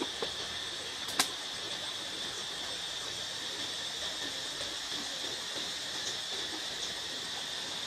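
Insects droning steadily in a high, even chorus, with a single sharp snap about a second in. Faint rustling runs underneath.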